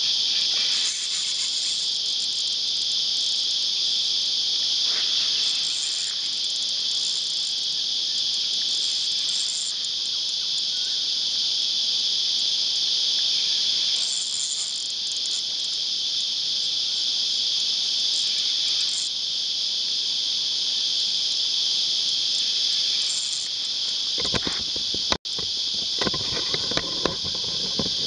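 Cicadas buzzing in a steady, noisy chorus, with a higher pulsing layer swelling in and out every few seconds. Near the end come rustling and knocks, with a brief cut-out.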